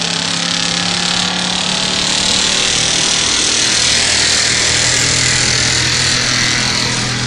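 1985 Ford F250 pickup's engine running hard under full load as the truck drags a pulling sled, a loud steady drone with a lot of hiss; the engine note drops lower about five seconds in.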